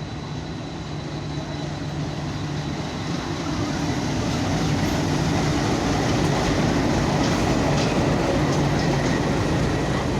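Fast train running at speed, its rushing noise building in loudness and then holding, with a few sharp clicks in the second half.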